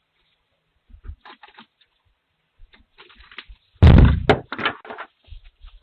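A heavy thump a little under four seconds in, followed at once by a second sharp hit, amid lighter knocks and rustling.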